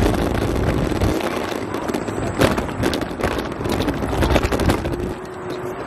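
Wind buffeting the microphone and road rattle from riding an electric scooter over pavement, with scattered knocks and clicks, heaviest rumble in the first second.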